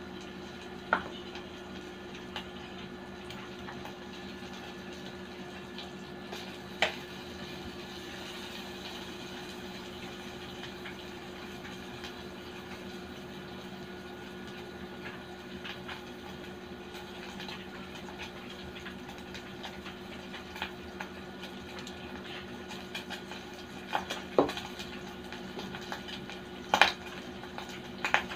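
Pork sizzling on a non-stick grill: a steady frying hiss over a low hum, broken by a few sharp pops and clicks, the loudest about seven seconds in and near the end.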